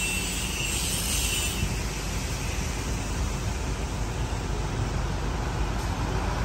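Truck engine idling: a steady low rumble, with a faint hiss that fades out in the first second or two.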